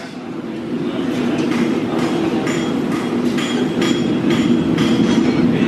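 Steady mechanical hum of welding-shop machinery, with scattered light metal clinks.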